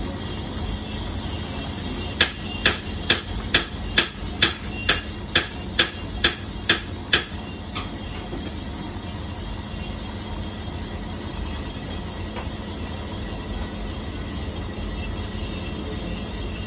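Portable single-cylinder reboring machine running steadily, its boring bar cutting a two-wheeler cylinder bore. About two seconds in comes a run of about a dozen sharp clicks, roughly two a second, lasting some five seconds.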